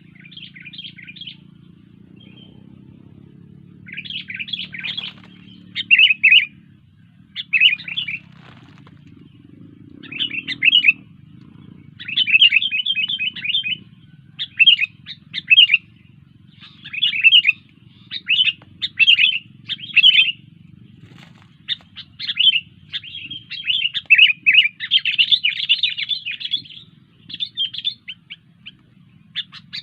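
Sooty-headed bulbul (kutilang) singing: short phrases of quick chattering notes, repeated every second or two and coming almost without a break in the second half, over a faint low hum.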